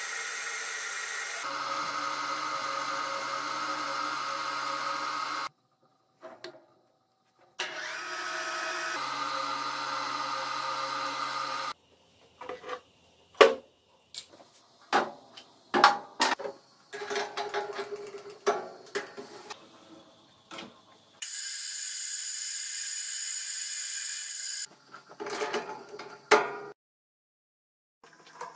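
Metal lathe running steadily in short edited stretches that start and stop abruptly, turning a steel part. Between them come irregular sharp clinks and knocks of metal tools and parts being handled.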